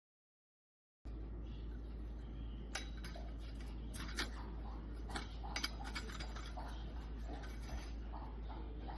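Light clinks and taps of metal and glass kitchenware being handled over a steady low hum, starting after about a second of dead silence.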